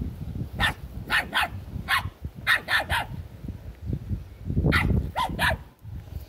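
Small dog barking: about ten sharp, high-pitched barks in quick groups, with a pause about three seconds in.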